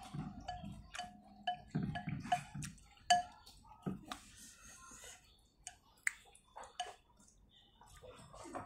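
A man chewing noodles close to the microphone, with wet lip smacks and short clicks of wooden chopsticks against the bowl; one sharper click about three seconds in.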